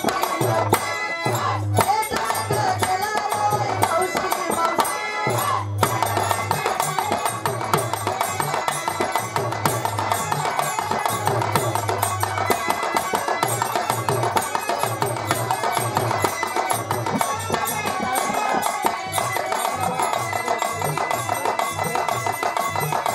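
Birha folk music: a dholak hand drum plays a steady rhythm under sustained harmonium melody, with no singing or speech.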